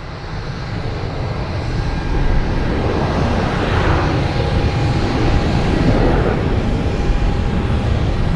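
Jet airliner passing overhead: a loud engine rumble and roar that builds over the first couple of seconds and then holds steady, with a faint thin whine in the middle.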